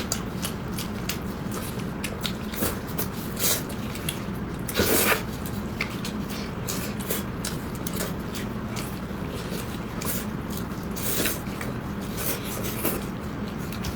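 Close-miked chewing of chicken: irregular wet smacks and clicks, the loudest about five seconds in, over a steady background hiss.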